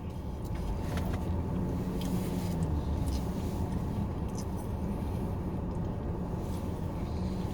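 Steady low rumble of a car interior, with a few faint clicks.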